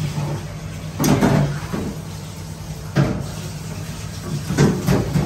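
A metal serving spoon scooping rice off a metal platter and knocking against it and a plate: sharp knocks and scrapes about a second in, at about three seconds, and twice near the end.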